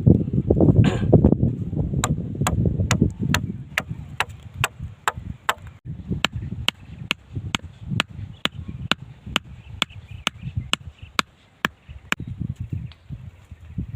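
A steady series of sharp chopping or hammering strikes, about two a second, evenly paced throughout. Low wind rumbles on the microphone in the first few seconds.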